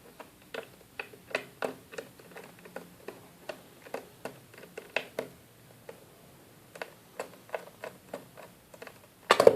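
Small screwdriver clicking and tapping on the screws of a MacBook Pro's bottom case as they are undone, irregular light clicks a few a second, with a louder clatter near the end.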